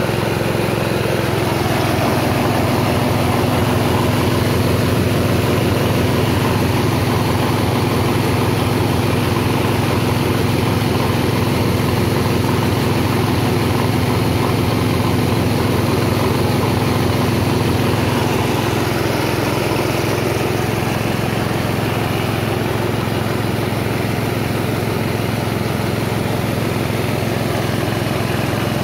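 Small engine-driven rice milling machine running steadily under load, hulling and polishing paddy into rice in one pass, with bran blowing out of its chute.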